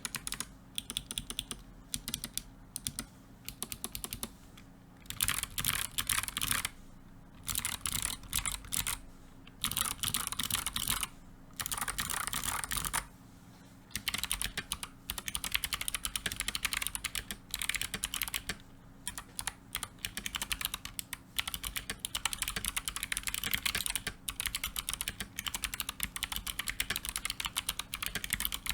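Typing on a Redragon BBK530 Pro 60% mechanical keyboard fitted with clicky Kailh Box Jade switches and PBT keycaps: fast runs of sharp clicks broken by several short pauses.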